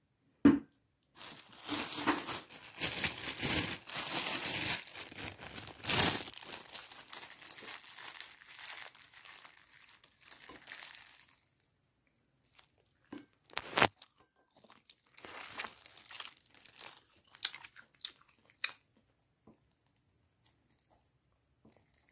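Thin plastic glove crinkling steadily for about ten seconds as a gloved hand pulls apart a rice-stuffed dough pouch, followed by scattered light clicks and taps.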